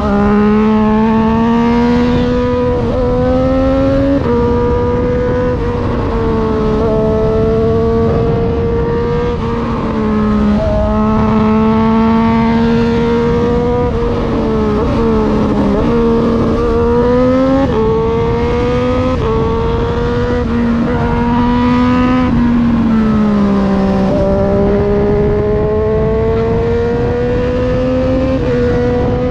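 2020 Triumph Street Triple 765 RS's three-cylinder engine through an un-baffled SC Project full exhaust, ridden on the road: the note climbs under throttle and drops sharply at each gear change or throttle lift, several times over, with a longer slowdown about halfway. Wind and road rush run underneath.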